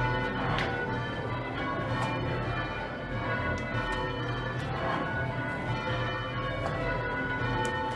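Ring of six church bells (tenor in A, about 7 cwt) in full-circle change ringing, the bells striking one after another at a steady, even pace while a method is rung.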